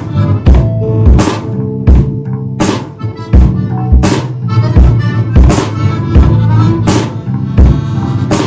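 Band playing an instrumental passage: a drum kit keeps a steady beat under accordion, bass and guitar.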